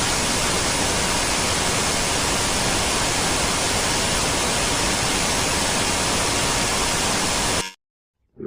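Loud, steady radio static hiss with a faint steady tone in it, in place of the weather broadcast. It cuts off abruptly to dead silence near the end.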